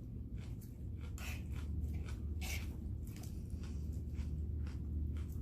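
Close-up chewing of a mouthful of chicken Caesar salad, with irregular soft crunches and mouth clicks.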